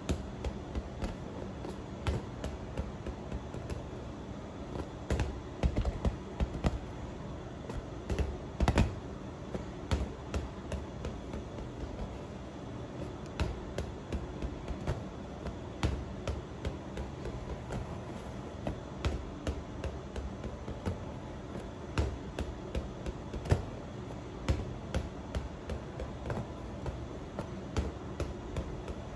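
Light plastic football bouncing on a tiled floor and being batted by hand, giving irregular sharp taps and knocks, sometimes several a second, over a steady low hum.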